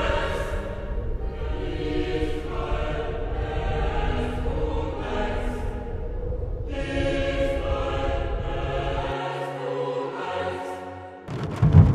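Choral music: voices holding slow, sustained chords that change about once a second, over a low steady rumble. The rumble drops out about nine seconds in, and a sudden loud noise breaks in near the end.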